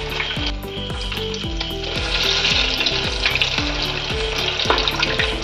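Spring rolls deep-frying in hot white oil in a kadai, the oil sizzling steadily around them.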